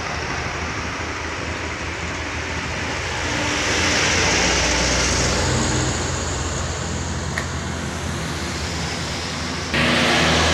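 Loaded cargo trucks' engines passing at low speed: one grows louder and fades about four seconds in. Near the end a nearer truck's engine comes in abruptly loud.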